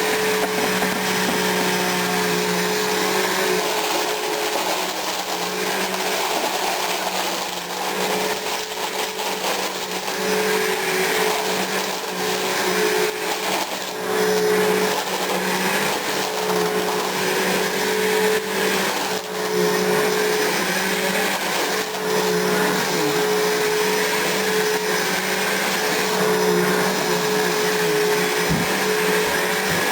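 A 12-amp Bissell vacuum cleaner running steadily with a constant motor hum as it is pushed over carpet, with a few brief sharp clicks as it picks up copper BBs.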